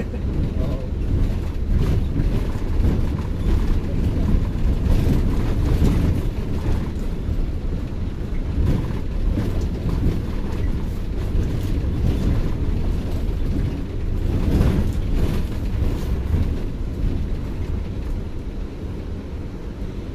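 Intercity coach on the move: a steady low rumble of engine and road noise, with a few knocks here and there.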